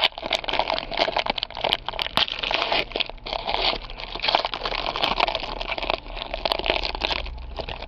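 Plastic wrapper of a football card pack crinkling and tearing as it is ripped open by hand, a steady run of crackles throughout.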